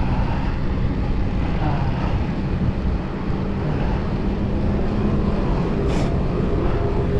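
Steady low rumble with a droning hum, the sound of traffic or a vehicle on the move mixed with wind, and a short sharp click about six seconds in.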